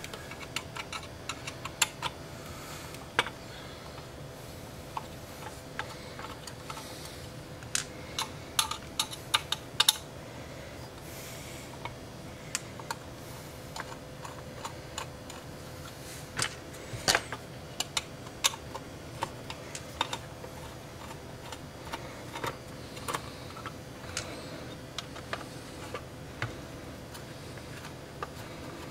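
Small screwdriver working the screws out of a circuit board in a metal avionics case: scattered light metallic clicks and ticks, with a few sharper clicks about eight to ten seconds in and again near the middle.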